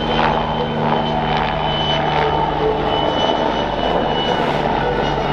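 PZL W-3 Sokol helicopter in flight, its twin turboshaft engines and rotors running steadily.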